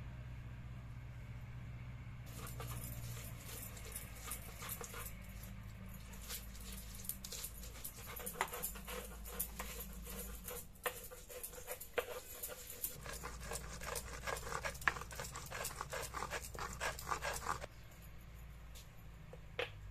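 Stone grinding slab and hand stone rubbing in rapid back-and-forth scraping strokes as green chillies, garlic and ginger are ground to a wet paste. It starts about two seconds in and stops shortly before the end.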